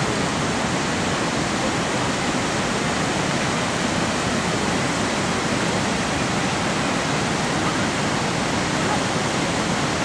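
Monsoon-swollen river rushing over rocky rapids: a steady, unbroken rush of water.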